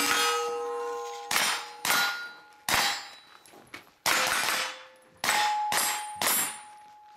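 Pistol-caliber carbine fired in a string of about eight shots at uneven intervals, each followed by the ring of a struck steel target.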